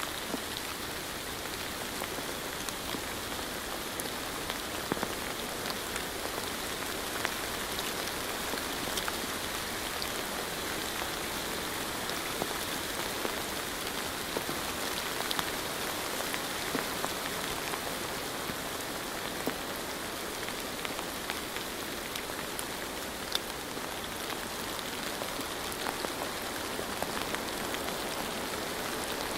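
Steady rain with a constant hiss and many small scattered drop taps, as of rain against a window.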